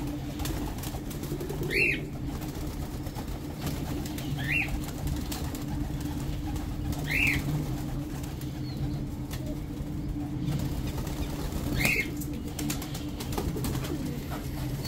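Pigeons at a rooftop feeding setup, with wing flapping and a short high bird chirp about five times, a few seconds apart, over a steady low hum.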